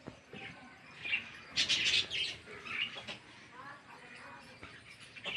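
Caged pet birds chirping in short, scattered calls, with a louder, harsher burst of calling about a second and a half in.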